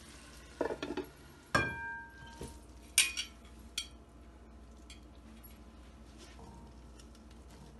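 Metal cookware clattering: a metal lid on a frying pan clanks with a brief ringing tone about a second and a half in, then a metal pot clinks sharply against a ceramic bowl twice, followed by a few faint ticks.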